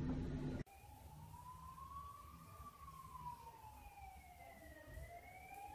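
A brief low rumbling noise cuts off abruptly under a second in, followed by a faint siren wailing, its pitch slowly rising, falling and rising again.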